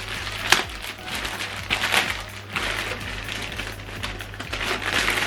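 Packaging being handled: crinkling and rustling of wrapping material, with a couple of sharp knocks, about half a second in and about two seconds in.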